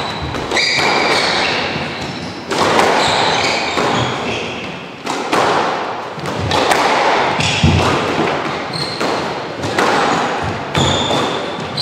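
Squash ball struck by rackets and smacking off the walls and floor during a rally, a sharp crack about every second or so, each echoing in the enclosed court.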